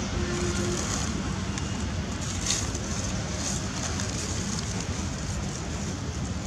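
Steady outdoor background noise, a low rumble with hiss, with a few faint clicks about two and a half and three and a half seconds in.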